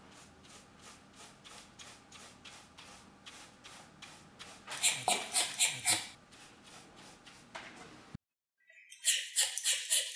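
Drilled anchor holes in concrete being cleaned: a wire brush scrubs in quick, rhythmic strokes, with puffs of air blowing the drill dust out. The strokes grow much louder about halfway through, cut off suddenly after about eight seconds, and start again loud and fast about a second later.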